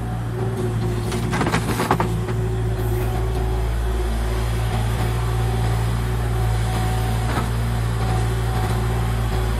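Kubota KX040 mini excavator's diesel engine running steadily. About a second and a half in comes a short cluster of knocks and clatter from a bucketful of dirt and stones dropping into a steel dump truck bed.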